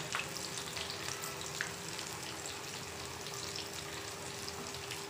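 Besan-and-yogurt-marinated chicken pieces deep-frying in hot oil in a large kadhai: a steady bubbling sizzle with many small crackles.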